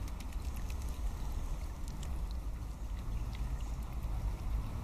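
Steady low wind rumble on the microphone, with faint water sounds and scattered small clicks and splashes from mute swans and ducks dabbling and feeding at the surface.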